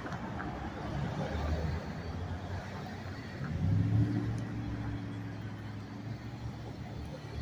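Road traffic with vehicle engines running. About three and a half seconds in, one engine grows louder as it accelerates, peaks, then settles back.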